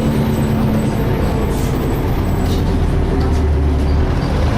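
Diesel engine of a DAF SB220 single-deck bus heard from inside the saloon, running with a steady drone and the vacuum-cleaner-like 'hoovering' note. A deeper hum swells about halfway through and drops away shortly before the end.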